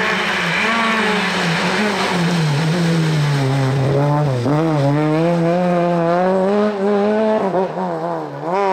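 Peugeot 306 rally car engine under hard driving. Its pitch sinks over the first few seconds, climbs steeply about four seconds in, dips briefly, then climbs again near the end.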